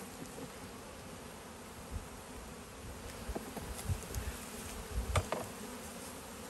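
Honeybees buzzing in numbers around an opened hive being worked, a steady hum. A few knocks and low thumps as comb is pried and lifted, the loudest about five seconds in.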